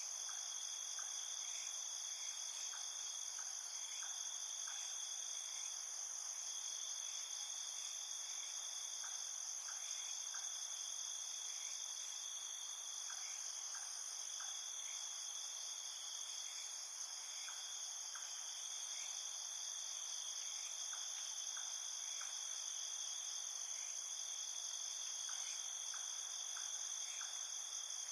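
Night insect chorus: crickets trilling steadily at several pitches at once, with faint short chirps scattered through it in small groups.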